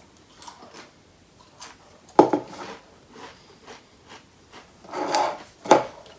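Pringles potato crisps crunching as they are eaten, with light rubbing and scraping from handling the crisp can. Two sharp crunches stand out, about two seconds in and near the end.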